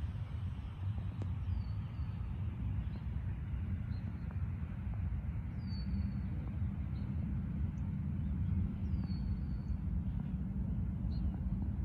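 Gusty wind buffeting the microphone as a storm's shelf cloud moves in, a steady, uneven low rumble. Over it a bird gives a short downward-slurred call four times, a few seconds apart.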